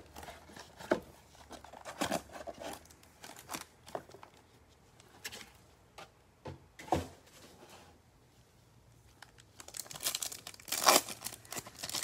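Scattered rustles and clicks of a cardboard trading-card box and foil card packs being handled, then, from about ten seconds in, a louder stretch of crinkling and tearing as a Topps Chrome foil card pack wrapper is torn open.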